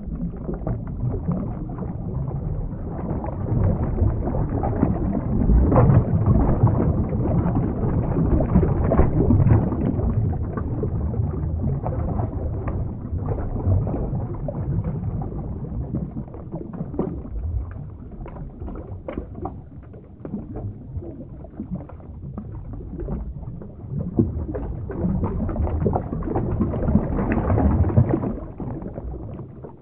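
Underwater ambience sound effect: low rumbling, churning water with bubbling and crackle, swelling twice and fading out at the end.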